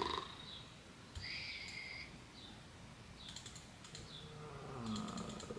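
Faint clicking of a computer keyboard in two short runs, about three and five seconds in. A brief high steady tone sounds a little over a second in, and a man's low falling hum comes near the end.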